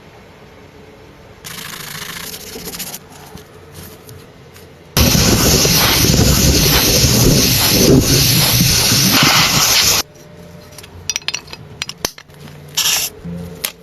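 Pressurised spray hissing in two bursts: a short, lighter one about a second and a half in, then a loud one from about five seconds in that lasts some five seconds and cuts off abruptly. Scattered clicks and knocks follow near the end.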